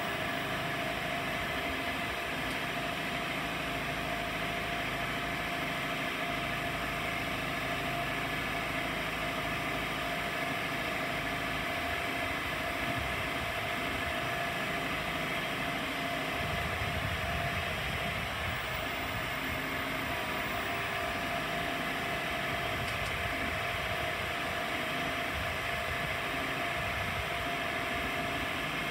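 Sandvik DT820 two-boom drilling jumbo running steadily while its boom is moved hydraulically. It gives a constant hum with a steady whine over it, and the low rumble shifts about twelve and sixteen seconds in.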